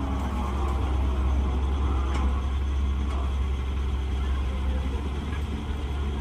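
Hyundai crawler excavator's diesel engine running steadily as it digs and swings a loaded bucket of soil over to a tractor trolley, with a couple of faint knocks about two and three seconds in.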